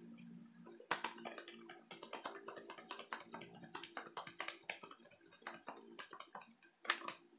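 A deck of oracle cards being shuffled by hand: a quick, irregular run of soft card slaps and clicks, with a sharper slap about a second in and another near the end.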